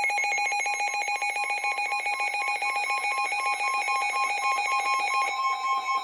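Emergency alert tones of a NOAA Weather Radio tornado warning: a rapid, ringing multi-tone trill that changes to a steady two-tone alarm about five seconds in.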